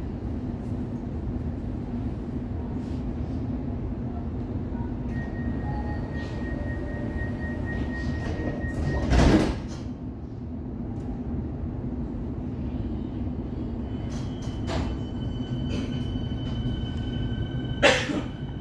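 Inside a suburban electric train carriage: the train's steady low hum, with a loud sudden door sound about halfway through and another sharp one near the end as the sliding doors work. Steady tones sound over the hum in the second half.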